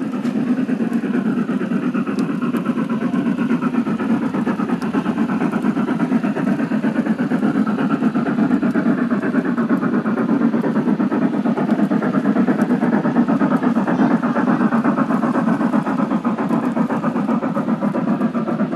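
G-scale garden railway model train rolling past close by: a steady rumble of wheels on the track with a fast, even clatter.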